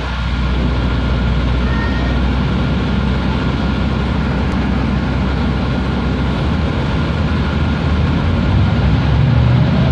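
Mercedes-Benz O405G articulated bus's diesel engine running under way, heard from inside the passenger cabin with road noise, its note rising and getting louder near the end as the bus picks up speed.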